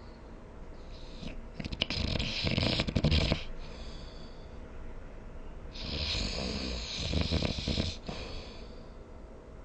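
A sleeping person snoring: two long, rough snores about four seconds apart, each with a breathy hiss, and a quieter breath between them.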